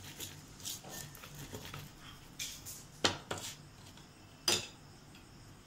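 Steel spoon scraping and clicking against a plastic plate while spreading sauce over a flatbread. Soft scraping gives way to two sharp clicks about three seconds in, and one more about a second and a half later.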